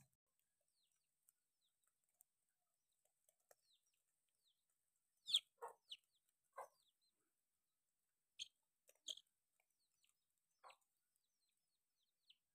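Mostly quiet, with a handful of short chicken clucks scattered through the middle, the loudest about five seconds in.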